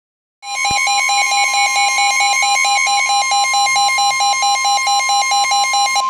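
Midland NOAA weather radios sounding a severe thunderstorm warning alert. A steady 1050 Hz NWS warning alarm tone plays with the radios' own rapid alert beeps pulsing over it, about four a second, starting about half a second in.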